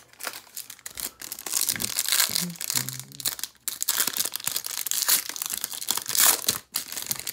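Foil wrapper of a trading-card pack crinkling and tearing as it is ripped open by hand: a dense, papery crackle that stops twice for a moment.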